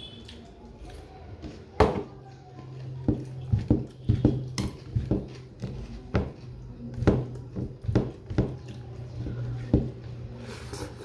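Close-up eating sounds: fingers mixing rice on a steel plate and mouth sounds of eating, heard as a dozen or so sharp irregular clicks and smacks, the loudest about two seconds in. A low steady hum runs underneath from about three seconds in.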